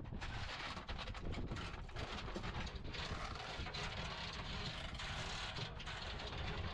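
Metallic clinking and rattling of a belt of linked machine-gun cartridges being pulled from an ammunition can and handled, as many quick irregular clicks over a steady low rumble.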